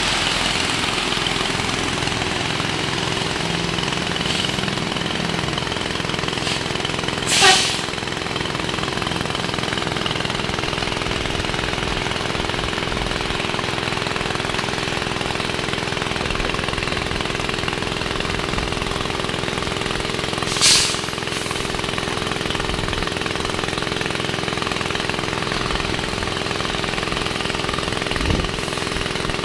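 Lorry's diesel engine running steadily at idle over the steady hiss of rain on a flooded road. Two short, loud hissing bursts break through, about seven and about twenty-one seconds in.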